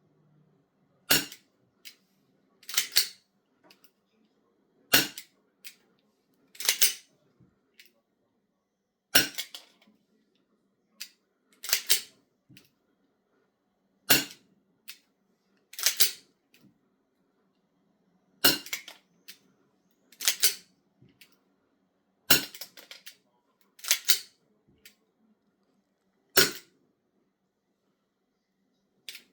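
Raven R9-4 airsoft gas pistol firing single shots, seven sharp cracks spaced about four seconds apart. Each shot is followed a second or two later by a longer mechanical clatter.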